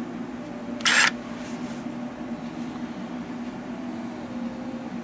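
A steady low hum, with one short, sharp noise about a second in.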